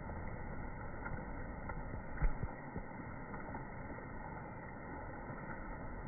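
Steady outdoor background noise, a low rumble and hiss, with a single dull thump about two seconds in.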